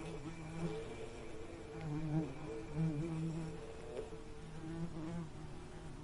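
Bees buzzing: a low buzz that wavers up and down in pitch and fades in and out several times as the insects move about.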